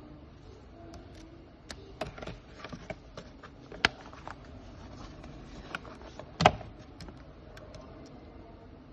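Handling noises from unboxing sunglasses and their packaging: scattered light clicks and taps, with a sharper knock near the middle and the loudest one about six and a half seconds in.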